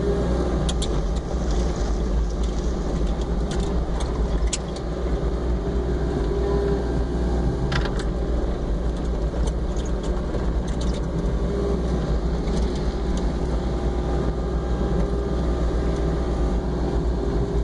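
Mini excavator engine running steadily under load, heard from the operator's seat, as the machine pushes snow with a front-mounted bucket. A few sharp clicks and knocks stand out over it, the clearest about eight seconds in.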